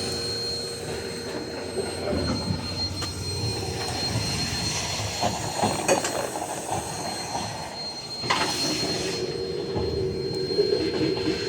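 A steady mechanical whine over a noisy hum, with scattered knocks and clatter and a brief louder burst about eight seconds in.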